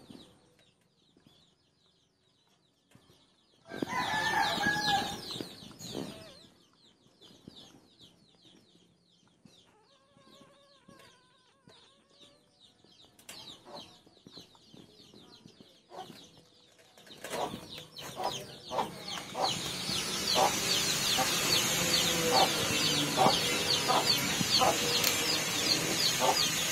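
Backyard chickens clucking, with one loud call about four seconds in and a run of short clucks in the last third, over outdoor background noise that grows louder near the end.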